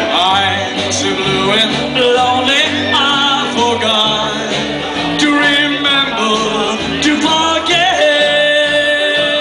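Rockabilly band playing live: a man singing over acoustic guitar, electric guitar and upright bass. He holds one long note near the end.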